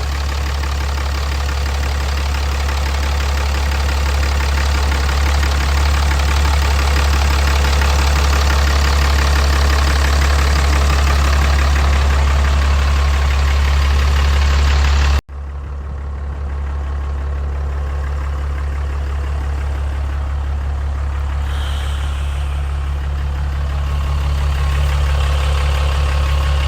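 A freshly tuned-up engine idling steadily with a strong low hum. About fifteen seconds in the sound cuts out for an instant and comes straight back with less hiss.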